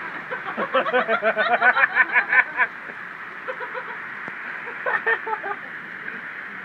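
Steady hiss of rain and tyres on a wet, flooded street. About half a second in comes a quick run of laughter lasting about two seconds, and a shorter burst follows around five seconds.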